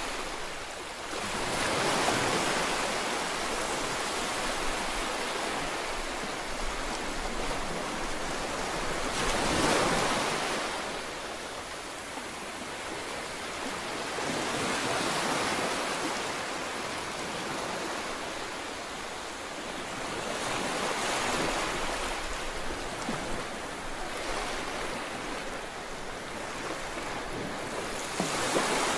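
A steady rushing noise with no pitch that swells and fades in slow waves, peaking about every five to six seconds.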